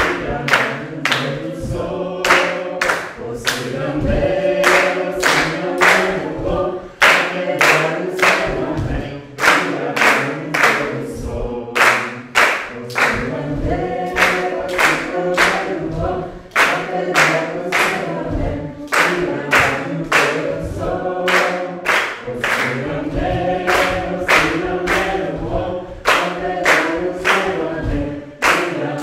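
A group singing together unaccompanied, voices in several parts, while clapping hands on a steady beat of about two claps a second, with a few brief breaks in the clapping.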